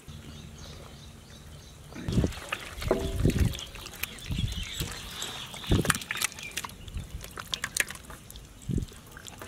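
Hands mixing chicken drumsticks in a wet egg and milk batter: irregular squelching and slapping, starting about two seconds in.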